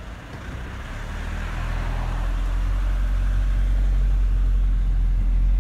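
Moving car heard from inside the cabin: a steady low rumble of road and engine noise that grows louder through the first few seconds, then holds.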